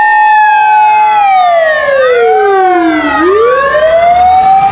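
Japanese emergency vehicle's motor siren held on a steady high note, then winding down over about two seconds to a low growl and winding back up to full pitch. A second siren tone crosses it partway through.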